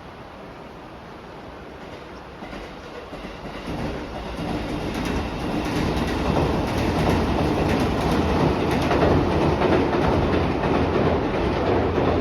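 Joetsu Line electric train approaching and crossing a steel railway bridge. It grows louder over the first few seconds, then runs on as a steady rumble with rapid wheel clatter over the rail joints.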